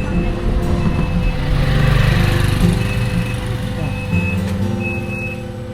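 Motor vehicle running during a ride, a steady low rumble that swells about two seconds in, with short high beeps or tones repeating throughout.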